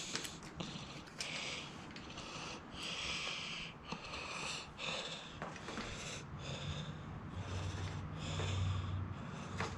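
Close, heavy breathing through the nose of a person bent over a task, in short hissy puffs about one or two a second, with a low hum in the last few seconds.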